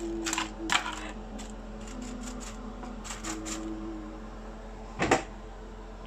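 Metal tongs clicking and tapping against a foil-lined tray of ribs on an oven rack, with the foil crinkling; a louder clatter about five seconds in.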